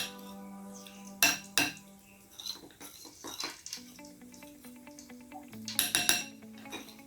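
Metal utensils clinking and knocking against dishes in a few sharp strikes, a couple in the first two seconds and a cluster near the end.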